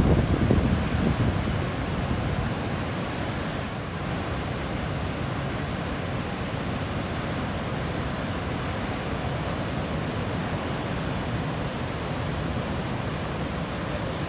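Steady roar of Niagara Falls' falling water, with wind buffeting the microphone in a low rumble during the first second or so.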